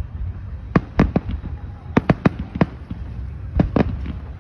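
Fireworks display shells bursting overhead: about nine sharp bangs in three quick clusters, near one second in, around two seconds in and near the end, over a steady low rumble.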